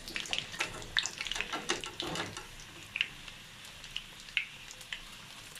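Broken papad pieces deep-frying in a pan of hot oil: a steady bubbling sizzle with frequent sharp, irregular crackles and pops.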